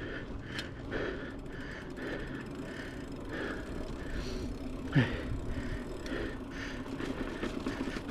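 Mountain bike rolling over a dirt trail: tyre and frame rumble with the rear hub's ratchet clicking as it coasts. A brief sharp sound about five seconds in.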